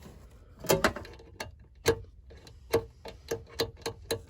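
Sharp clicks and knocks of hand work on small mounting hardware: a few scattered knocks, then from about halfway an even run of clicks, about three to four a second.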